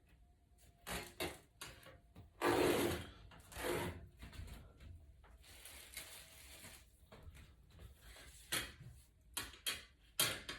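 Small handling noises of repair work on a tablet: sharp clicks and rubbing or scraping of tools and plastic parts on a work surface, coming in short irregular bursts, loudest a little after two seconds in.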